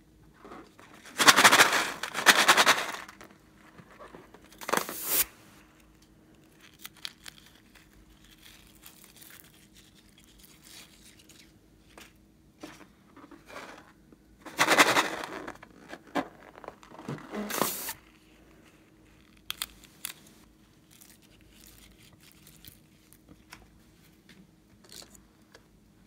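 Slime-filled rubber balloons handled and squeezed in the hands, giving two loud spells of crinkly rubbing noise, about a second in and again about fifteen seconds in, with a shorter one near five seconds and faint handling noises between.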